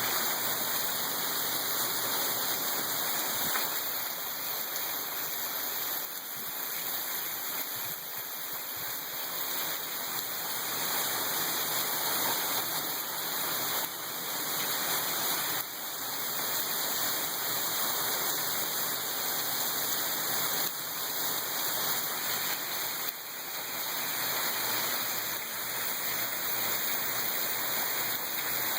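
Heavy rain falling, a steady, even hiss of water.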